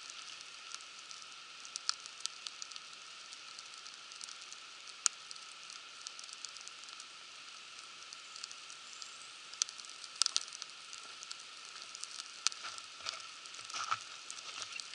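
Campfire burning: a steady hiss with scattered sharp crackles and pops, the sharpest about five and ten seconds in.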